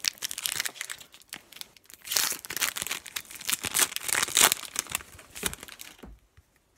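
Foil wrapper of a 2018 Prizm football trading-card pack being torn open and crumpled by hand, a dense run of crinkles and crackles that stops near the end.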